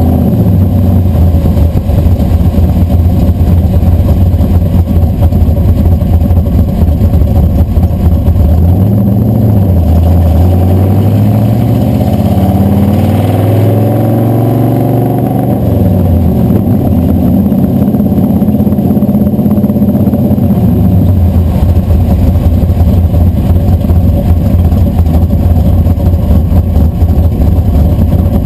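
Blueprint Engines 540 cubic-inch big-block Chevy V8 running while the truck drives, heard from under the frame close to the exhaust pipes, with road noise. The engine note climbs and drops in pitch several times around the middle of the stretch, then settles back to a steady pitch.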